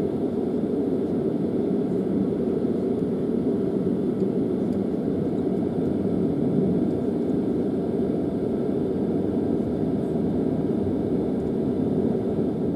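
Steady low rumble and rush of air inside a jet airliner's cabin on the ground, the even drone of the aircraft's ventilation and engines or auxiliary power unit.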